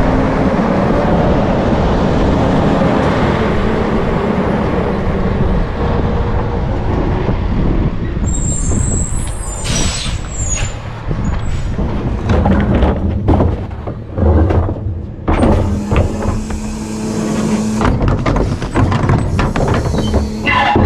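A garbage truck running: a loud rushing hiss for the first several seconds, a short high squeal about eight seconds in, then knocks and rattles over the engine's steady low drone.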